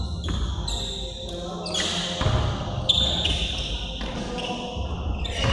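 Basketball bouncing on a gym floor and sneakers squeaking in short high chirps as players cut and move, all echoing in a large gym hall.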